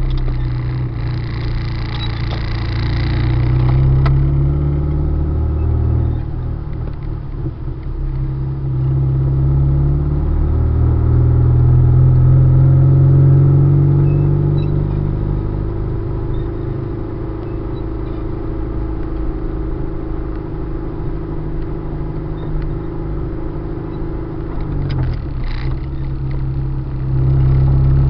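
Car engine and road noise while driving, the engine pitch rising and falling with speed. A brief hiss near the start and a short rattle a few seconds before the end.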